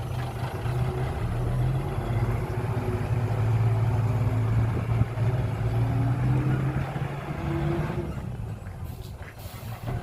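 Engine of a heavy earthmoving or haulage vehicle running steadily with a deep hum. It grows louder over the first few seconds, then eases off, with a short hiss near the end.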